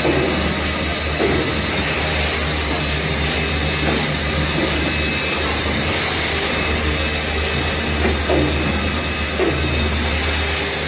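Production machinery running steadily, a continuous low hum under a noisy mechanical wash.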